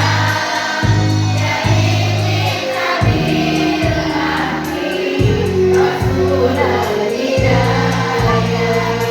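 A choir of schoolteachers singing together over an instrumental accompaniment, with sustained bass notes changing about every second.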